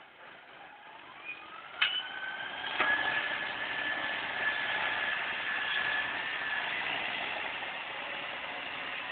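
John Deere 6310 tractor's diesel engine revving up as the front loader lifts a bucket of grass silage, then running steadily at higher revs with a high whine. Two sharp knocks come about two and three seconds in.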